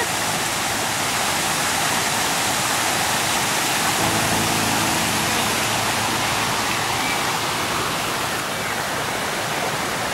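Shallow forest stream running over rocks: a steady, even rush of water.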